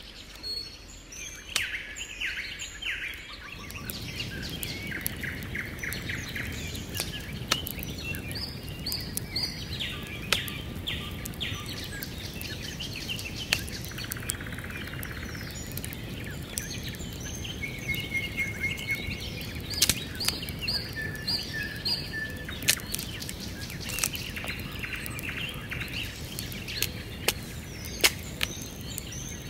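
Songbirds chirping and singing throughout, with scattered sharp clicks and snaps of dry wood as sticks are stacked over a small campfire. A low steady rush comes in about four seconds in.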